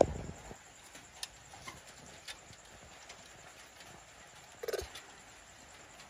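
A baby monkey climbing on a wooden-framed wire-mesh cage: one sharp thud at the start, a few light clicks and taps of hands and feet on the mesh, and another short muffled knock near the end.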